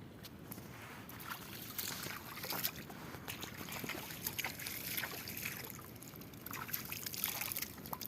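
River water splashing and trickling unevenly, with many small clicks and knocks scattered throughout.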